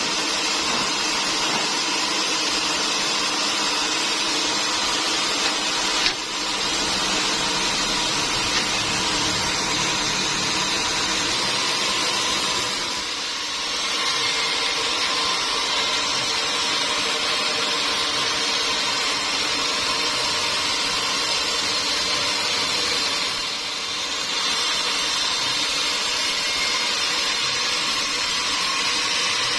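Sawmill machinery running steadily, a continuous mechanical noise with a high whine, dipping briefly twice. A sharp click about six seconds in.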